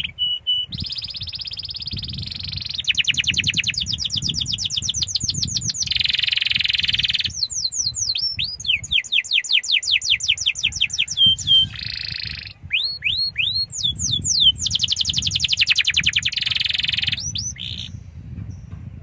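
Domestic canary singing a long, loud song of rapid trills and repeated falling whistles, switching to a new phrase every second or two before it stops near the end.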